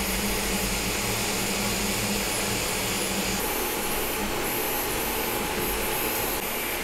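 Elegoo OrangeStorm Giga large-format FDM 3D printer running mid-print: a steady whir, with the stepper motors humming as the print head moves and their pitch changing about three and a half seconds in. The steppers are loud, typical of a printer that, by the owner's judgement, lacks silent stepper drivers.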